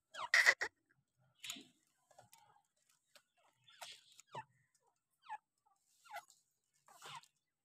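Caged grey francolins giving short calls: a loud, harsh double note about half a second in, then soft chirps that fall in pitch, spaced irregularly about a second apart.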